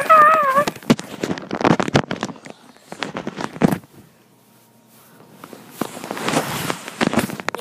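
Two pet dogs play-fighting: a short wavering whine at the start, then scuffling knocks and clicks, with a quiet stretch about four seconds in.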